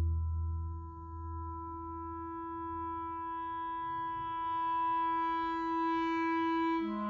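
Orchestral music: a single long note held by a wind instrument, swelling slightly, over the dying ring of a low drum-like boom. Near the end, lower instruments come in with a new chord.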